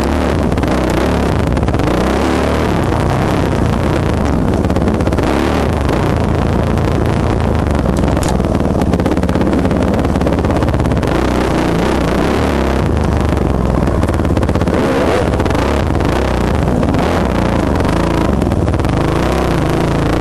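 Onboard sound of a 2007 Yamaha YZ450F's four-stroke single-cylinder engine, loud and continuous as the dirt bike is ridden through tight singletrack, the throttle rolling on and off.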